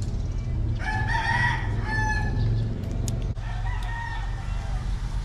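A rooster crowing: one long call starting about a second in and lasting nearly two seconds, then a shorter, fainter call a few seconds in, over a steady low rumble.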